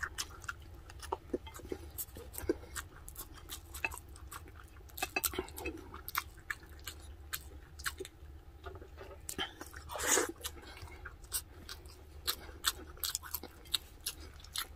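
Close-up chewing of braised pork spareribs and rice, with many short wet clicks and smacks of the mouth, and one longer, louder noise about ten seconds in.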